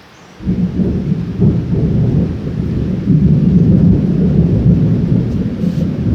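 Thunder from a severe thunderstorm: a loud, low rumble that breaks in suddenly about half a second in and keeps rolling, swelling a little after about three seconds, over steady rain.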